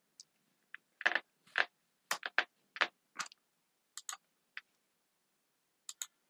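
Computer keyboard keystrokes: a quick run of key clicks as a search is typed, then a few scattered clicks.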